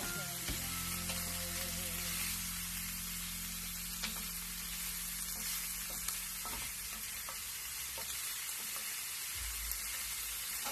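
Diced boiled pork belly and onions sizzling steadily in a hot skillet, stirred with a wooden spatula that knocks against the pan a few times.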